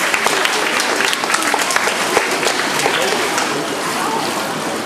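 Audience applauding, many hands clapping at once, easing off a little near the end.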